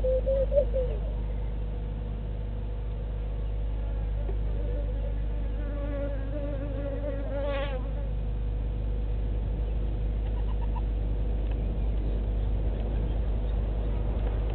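A flying insect buzzing, its pitch wavering as it moves: briefly at the start, then again for several seconds around the middle, rising and cutting off near 8 seconds in. A steady low hum runs underneath.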